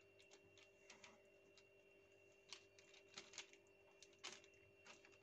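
Near silence: a faint steady hum, with scattered soft clicks and ticks from hands rolling a strip of thin, oiled msemen dough around its filling on the counter.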